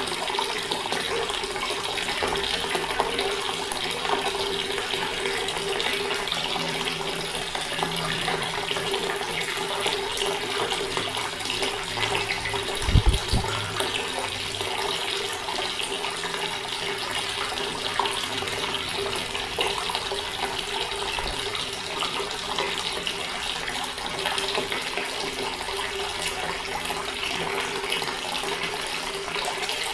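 Water tap running in a steady stream, an even splashing hiss. About halfway through, a single brief low thump stands out.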